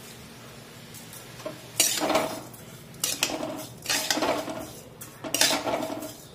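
A spatula scraping and stirring grated amla and sugar around a metal kadai, in four strokes that start about two seconds in.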